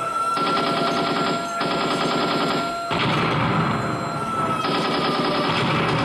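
Recorded battle sound effect of sustained machine-gun fire in long rattling bursts, with short breaks about one and a half and three seconds in. A high steady whistle sounds over it and slides down in pitch after about four seconds.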